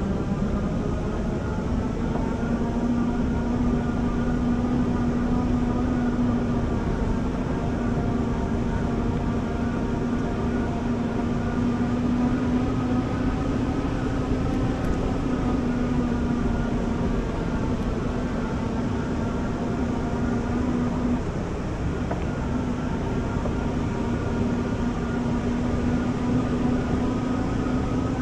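Electric bike motor whining at a steady pitch over a continuous low rushing noise. The whine steps up in pitch right at the start and drops out briefly about three quarters of the way through.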